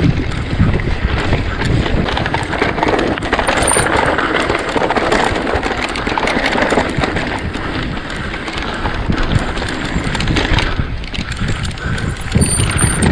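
Mountain bike being ridden over rough ground: steady tyre noise with constant rattling and clicking from the bike, and wind buffeting the microphone.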